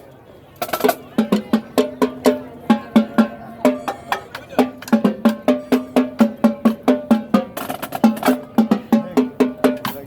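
Marching band percussion playing a brisk rhythmic passage of quick, sharp struck notes with short pitched ring, starting just under a second in after a brief lull.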